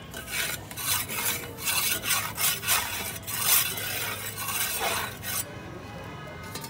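Metal spatula scraping the bare surface of a clay griddle in quick, rough strokes, about three a second, scraping it clean between rutis. The strokes stop about five seconds in.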